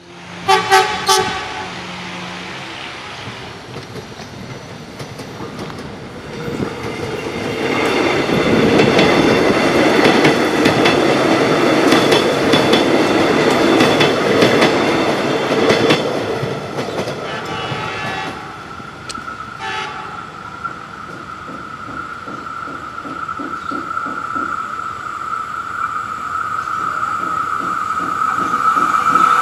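Indonesian train horn sounding two short blasts, then a train passing with wheels clattering over the rail joints, followed by more horn blasts and a steady high whine as it runs on.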